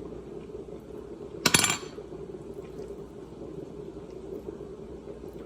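A single sharp clank of kitchenware knocked together about one and a half seconds in, ringing briefly, over a steady background hum.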